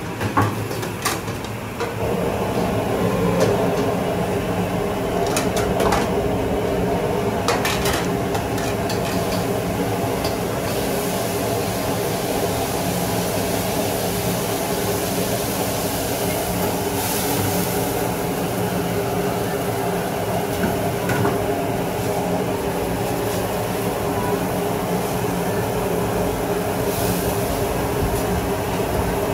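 Stir-frying in a wok over a commercial high-power gas wok burner: a steady roar and hum that gets louder about two seconds in, with a few sharp clanks of the metal spatula against the wok in the first several seconds.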